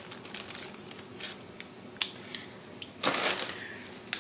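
Packaged groceries being handled and set down on a tile floor: scattered light clicks and knocks from a can and plastic items, with a brief rustle of plastic packaging about three seconds in as fruit squeeze pouches are picked up.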